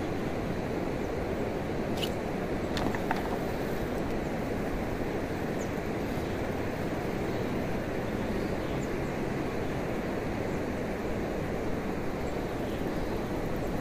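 Steady outdoor background rumble, even and unchanging, with a few faint clicks about two to three seconds in.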